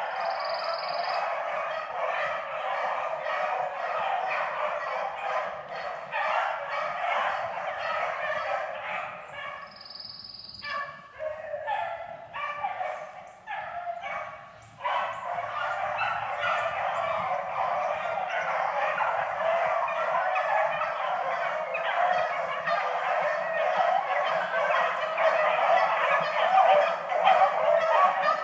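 A pack of beagles baying and howling together on a rabbit's trail, many voices overlapping in a steady chorus that thins out briefly about a third of the way through, then builds back. Twice a short, high-pitched tone sounds over it.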